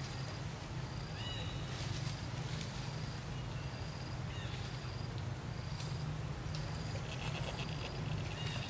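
Outdoor ambience: a short high chirp repeating about once a second, with a few other high, falling calls and a brief trill near the end, over a steady low hum.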